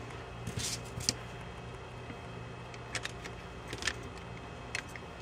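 Scattered light clicks and taps of laser-cut acrylic case pieces being handled and pressed into the notches of the side plates, over a faint steady hum.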